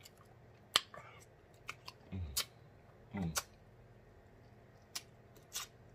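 Close-miked mouth sounds of a man eating turkey wing meat by hand: a handful of sharp, wet lip smacks and two short, low hums of enjoyment about two and three seconds in.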